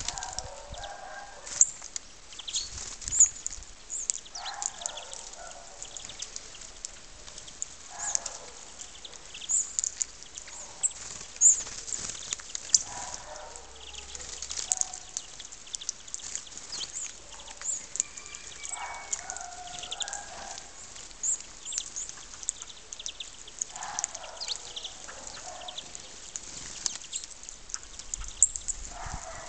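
Birds calling: a steady stream of short, high chirps, with a lower call about a second long every four to five seconds.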